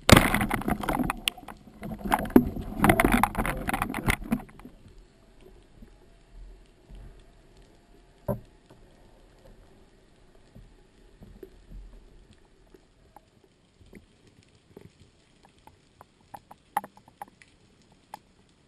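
Underwater water noise from a spearfishing shot and catch: a loud rush and splashing of water for about four and a half seconds, then faint scattered clicks and knocks as a speared sea bream is handled.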